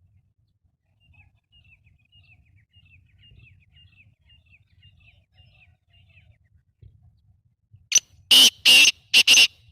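Black francolin calling: four loud, harsh, grating notes in quick succession near the end. Before that comes a long run of faint, quick, high chirps.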